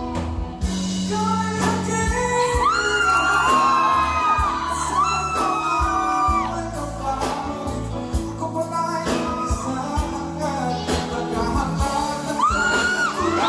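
A singer sings a Tagalog song over instrumental accompaniment, holding long high notes with vibrato.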